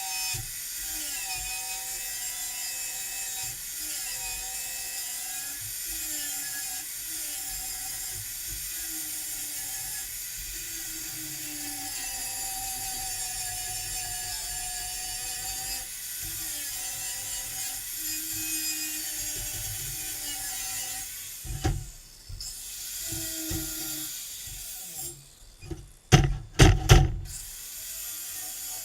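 A power tool running on metal, its pitch wavering up and down with the load over a high hiss. It stops late on, followed by several loud sharp knocks near the end.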